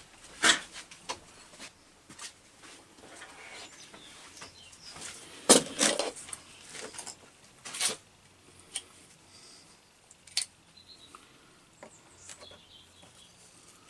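Irregular knocks and clinks, as of metal objects being handled and set down, with a few louder knocks spread through and faint clicks in between.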